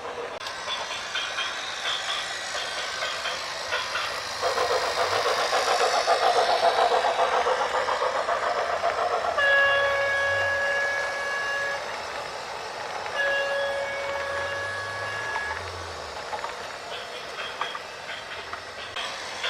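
A horn sounds two long, steady blasts, each about two and a half seconds, over a continuous rumble and hiss. The noise swells before the first blast.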